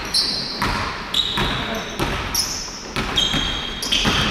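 Basketball dribbled on a hardwood gym floor, bouncing about every half second, with several short high-pitched squeaks of sneakers on the court.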